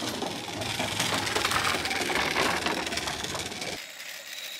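Scooter wheels rolling over the planks of a wooden boardwalk, a dense fast rattle of clicks. It cuts off abruptly near the end, giving way to a steady high insect drone.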